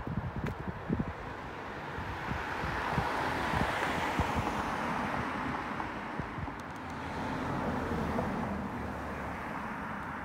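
A car passing on the road, its tyre noise swelling to a peak about four seconds in and fading, with a second, fainter vehicle passing about two-thirds of the way through. Wind buffets the microphone with a low, uneven rumble.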